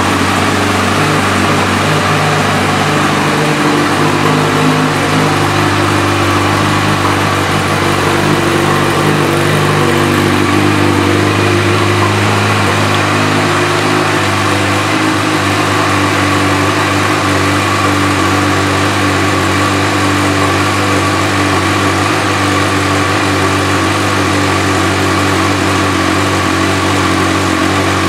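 2014 Honda CB1000R's inline-four engine idling steadily through an aftermarket Yoshimura exhaust.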